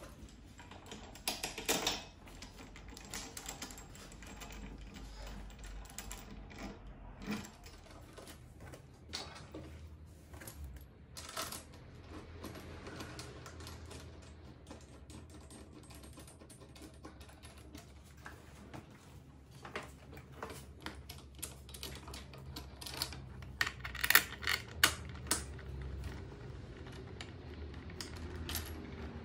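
Irregular small metallic clicks, taps and rattles from parts being handled and fitted by hand: the ATV's handlebar, clamp bolts and cables. There is a denser run of sharper clicks about three quarters of the way through.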